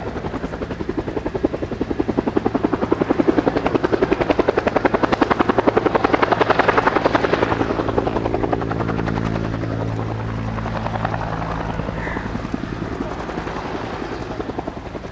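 Bell AH-1 Cobra attack helicopter in low flight: the rapid, even beat of its two-bladed main rotor, with the hum of its turbine and drivetrain. The rotor beat is loudest around the middle. Toward the end it gives way to a steadier droning hum.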